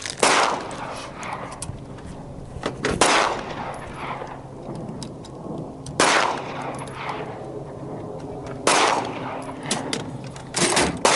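Gunshots: four spaced about three seconds apart, each ringing out with a long echo, then two in quick succession near the end.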